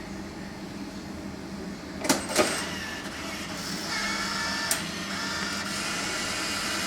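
Vending machine note reader taking a banknote: two sharp clicks about two seconds in, then the reader's motor whirring steadily for the last few seconds as it draws the note in.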